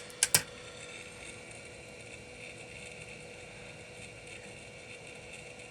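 Two sharp clicks, then a hot-air rework station blowing steadily: an even hiss with a faint steady hum, reflowing a phone motherboard.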